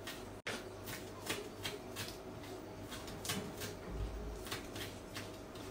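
Knife chopping fresh parsley on a bamboo cutting board: quick, uneven taps of the blade through the leaves onto the wood, about three a second.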